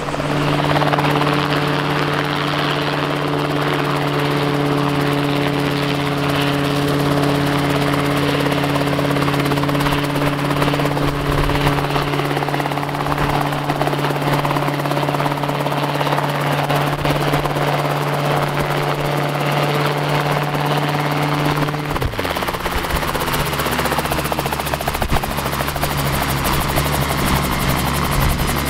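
Rotorway Exec 162F kit helicopter's engine and rotor running in low flight and hover, a steady drone with a clear hum. About 22 seconds in the tone drops abruptly and settles lower.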